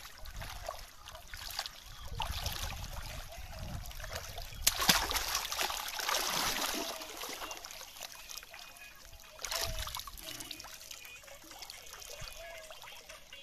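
Water splashing and trickling, with a louder stretch of splashing about five seconds in.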